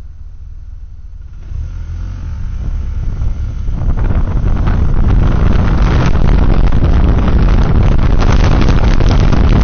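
Motorcycle engine idling, then pulling away about a second and a half in and accelerating, growing louder over the next few seconds. From about five seconds in a steady rush of wind and road noise fills the sound.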